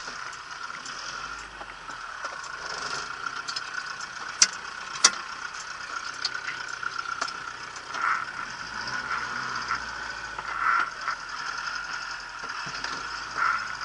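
Small Multicar utility truck's engine running and pulling away, mixed with city street traffic. Two sharp clicks come about four and five seconds in.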